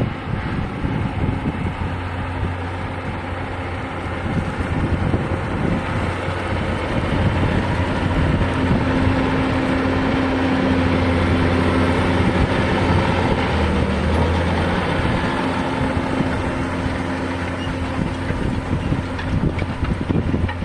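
John Deere 6150R tractor's six-cylinder diesel engine working steadily under load, pulling a six-furrow reversible plough through dry stubble. The engine grows louder a couple of seconds in, is loudest around the middle, and eases off slightly towards the end.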